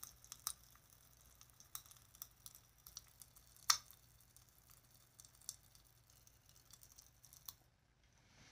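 Strawberry popping candy (Striking Popping Candy, a Korean Pop Rocks) crackling in an open mouth: faint, irregular little pops, one sharper than the rest about four seconds in, thinning out near the end. Loud for popping candy.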